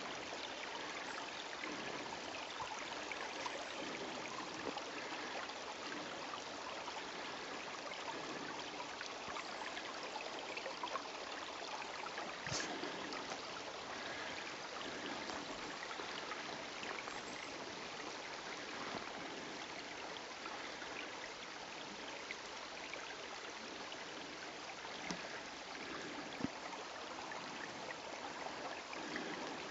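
A small forest brook trickling steadily, with one sharp click about halfway through.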